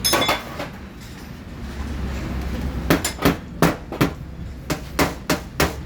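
Hammer taps on a car fender's sheet metal, paintless dent repair work on the panel. A few quick taps at the start, then about ten sharp taps in a row, roughly three or four a second, from about three seconds in.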